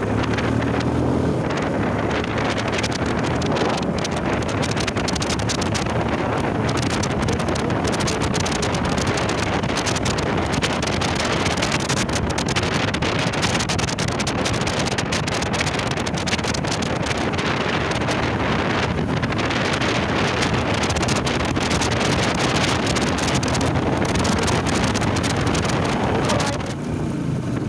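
Wind rushing over the microphone of a motorcycle riding at speed, with the bike's engine running underneath. The wind eases a little near the end and the engine comes through more clearly.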